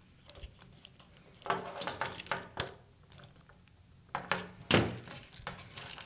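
Clinks and clatter of a screwdriver and duplex electrical outlets being handled on a workbench, in two short bursts. The loudest is a knock with a short ring about three-quarters of the way through, as the screwdriver is set down on the bench.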